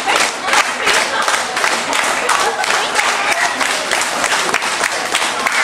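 Small audience clapping continuously, with a few scattered shouts from the crowd.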